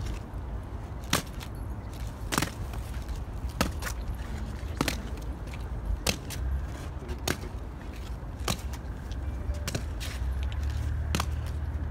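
Ceremonial guards' boots striking stone paving in a slow, stamped march step: a sharp crack about every second and a quarter, with a few fainter steps between. A steady low rumble runs underneath.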